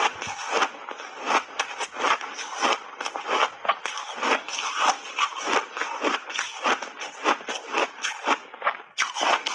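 Refrozen block ice being bitten and chewed: a rapid run of crisp, irregular crunches, about three a second, with a brief pause near the end.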